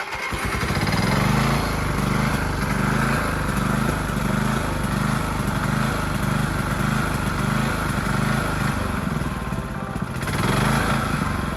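Old Greenfield ride-on mower's petrol engine running after a restart attempt, with a steady, slightly uneven throb; it picks up briefly about ten seconds in.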